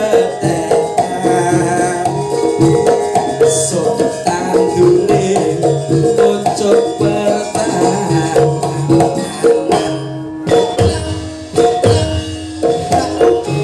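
Javanese campursari band playing, with hand-drum (kendang) patterns over ringing struck melodic notes.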